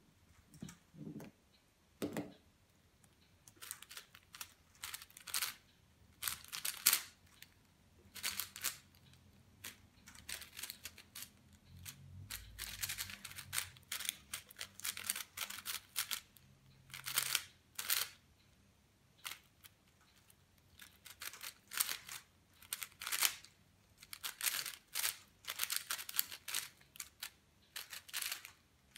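A plastic 4x4 speedcube, a Cosmic Wuque M, being turned fast by hand: quick flurries of clicking, clacking layer turns with short pauses between them.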